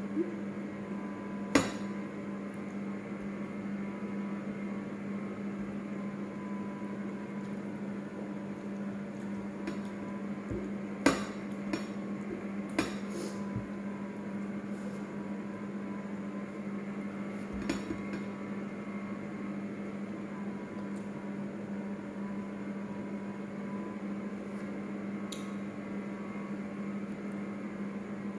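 A steady electrical hum runs under a few sharp clinks and taps of plates and a drinking glass on the table, the loudest about a second and a half in, then a small cluster around eleven to thirteen seconds in and one more near eighteen seconds.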